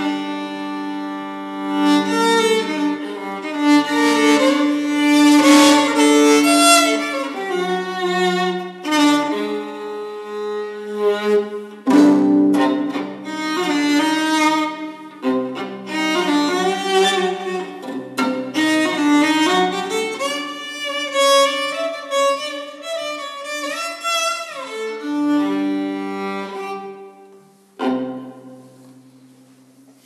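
Solo violin playing a melody of held notes, often two strings bowed at once, with one note sliding upward near the end. A last note sounds about two seconds before the end and fades away.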